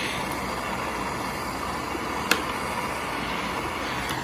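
Handheld gas torch flame burning with a steady hiss, heating a copper pipe joint for sweat-soldering, with a single sharp click about two seconds in.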